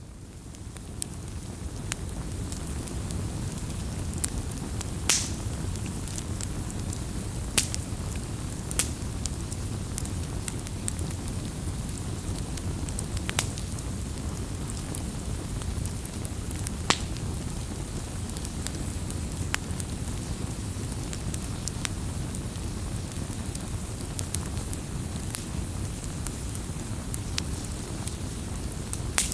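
Firewood burning: a steady low rumble of flames with scattered sharp crackles and pops from the wood, fading in over the first couple of seconds.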